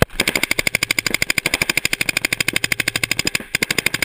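Paintball marker firing in a rapid, even stream of about a dozen shots a second, with a brief break about three and a half seconds in.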